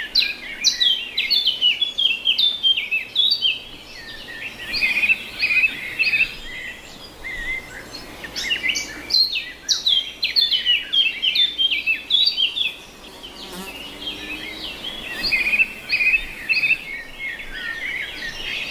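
Birds chirping continuously: many short, high, quickly repeated chirps that often fall in pitch, easing off for a moment past the middle.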